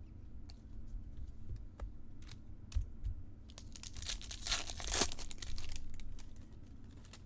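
Foil wrapper of a trading-card pack being torn open and crinkled, a dense crackling rip about three and a half seconds in, after a few light clicks of cards being handled.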